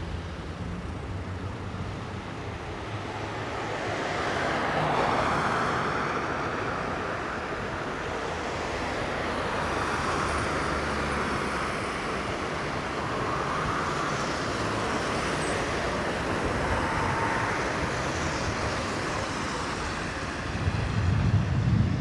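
Road traffic on the street: cars passing one after another, each swelling and fading, over a steady low engine hum. Near the end a louder low rumble comes in.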